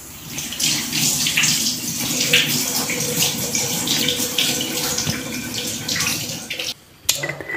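Water running steadily from a tap, with a faint steady tone under it from about two seconds in; it stops abruptly near the end.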